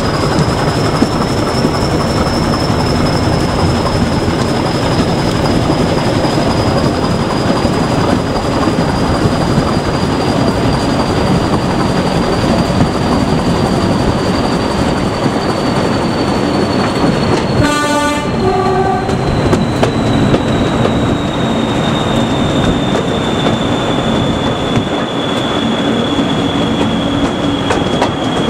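English Electric Class 40 diesel locomotive running at speed: the engine's drone and the wheels on the track, with a steady high turbocharger whistle that slowly falls in pitch. A brief horn blast sounds about two-thirds of the way through.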